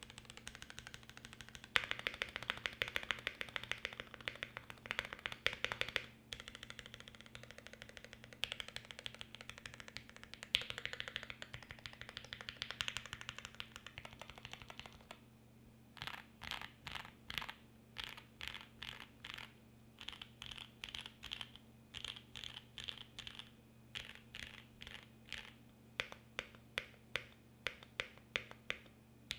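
Mode 80 mechanical keyboard with lubed Gateron Black Ink linear switches on an FR4 plate and GMK Rudy keycaps, typed on quickly in a dense run of keystrokes. About halfway through the typing slows to separate, distinct key presses with short pauses between them.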